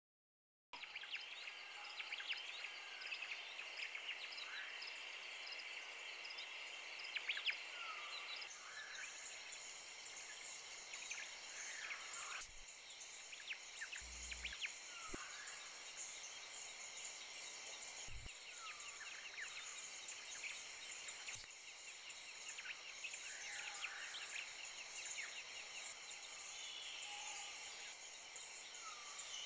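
Faint cartoon outdoor ambience: birds chirping over a steady high insect trill, with no speech. It starts out of silence about a second in, and the background changes abruptly several times where clips are spliced together.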